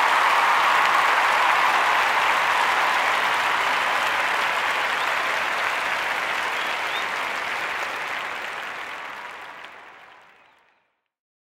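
Audience applause, slowly fading out until it dies away near the end.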